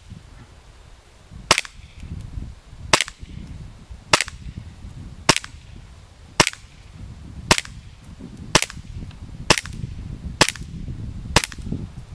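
Tokyo Marui Beretta PX4 gas blowback airsoft pistol firing ten single shots, about one a second and slightly quickening toward the end, each a short sharp pop.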